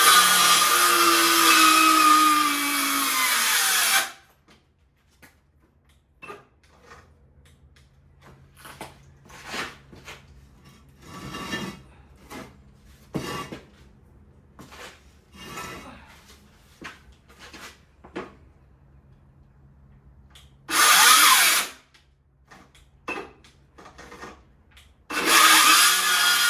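Handheld power saw cutting through a treated timber sleeper: a loud run for about four seconds with the motor pitch dropping as it bogs into the wood, then knocks and handling of the timber, then two short bursts of the saw near the end.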